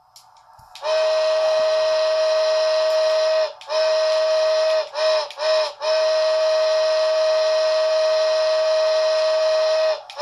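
Steam whistle from the DCC sound decoder of an HO scale American Freedom Train steam locomotive, blown in a sequence: a long blast starting about a second in, a shorter one, two quick toots, a long blast of about four seconds, then one brief toot at the end.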